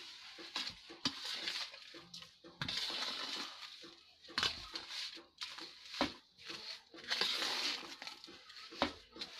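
Metal spoon stirring a dry, crumbly mixture of ground flaxseed, sugar and mawa in a metal bowl. It scrapes in strokes of about a second, with sharp clicks where the spoon knocks the bowl.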